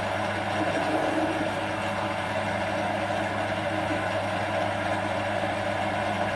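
Small metal lathe running, a steady motor and gear hum with a constant whine, while turning a chrome-moly steel workpiece. It cuts off abruptly at the end.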